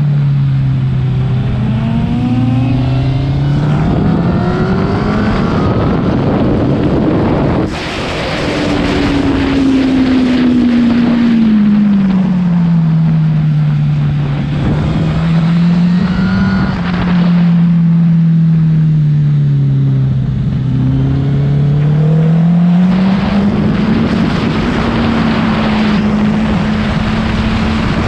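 Honda CBR1000 inline-four sport-bike engine heard from on board while riding, its note slowly rising and falling with the throttle several times. Wind rushes steadily across the microphone.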